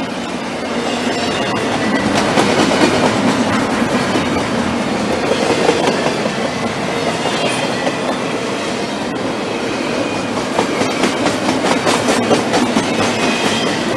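Intermodal freight train's container well cars rolling past: a steady rumble of steel wheels on the rails with rhythmic clickety-clack over the rail joints, the clicks coming thicker near the end.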